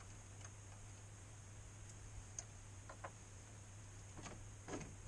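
Faint scattered clicks and light knocks of a plastic radiator grille and its screws being worked loose and lifted off, the loudest knock near the end, over a steady low hum.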